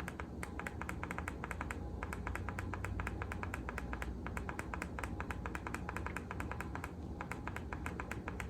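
Rapid, even clicking, around eight to ten clicks a second, as a video light's brightness control is stepped all the way up, over a low steady hum.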